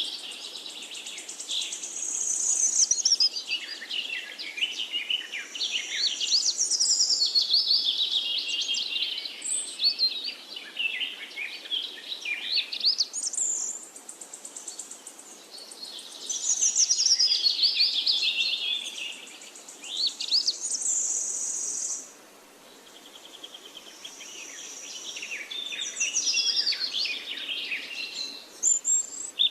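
Several songbirds singing and chirping over one another in a continuous chorus of quick warbles and rising and falling whistled phrases. The chorus drops briefly to a lull past the middle, then picks up again.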